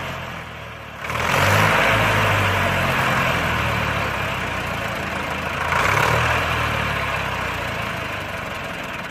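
Hindustan tractor's diesel engine labouring as it pulls a heavily loaded sugarcane trolley. It grows louder about a second in and again around six seconds, then eases off.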